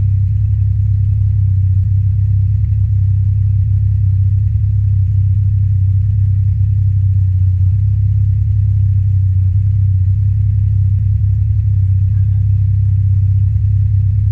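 ATV riding, heard as a loud, steady low rumble that does not change through the stretch, muffled as it is recorded by a GoPro camera.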